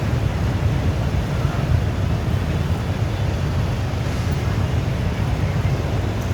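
Steady low rumble of outdoor background noise, even throughout, with no distinct event standing out.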